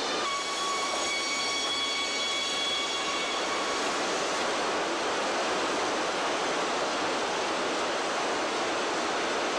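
Sawmill machinery running: a loud, steady din of conveyors, chains and motors, with a high whine over it that fades out about three and a half seconds in.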